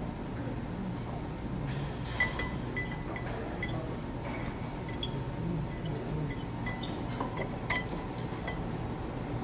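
Metal fork and knife clinking and scraping against ceramic plates and a bowl while eating: a scatter of short, sharp clinks with a brief ring, the loudest about two seconds in and near the end, over a steady low hum.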